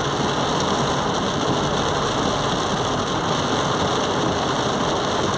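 Heavy rain falling on a car as it drives through water running across a flooded street, with the car's engine and tyres underneath, heard from inside the cabin. Steady throughout.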